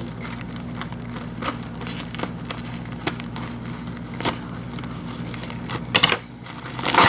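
Parcel packaging crinkling and crackling as it is wrestled open by hand, with scattered sharp clicks and louder rustling bursts near the end, over a steady low background hum.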